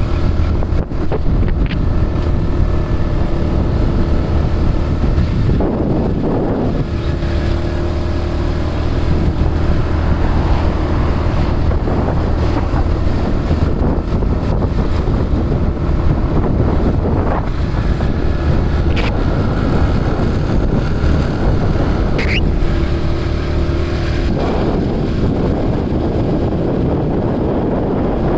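Motorcycle engine running at cruising speed, with wind buffeting the microphone. The engine note holds steady, shifting briefly about six seconds in and again near the end.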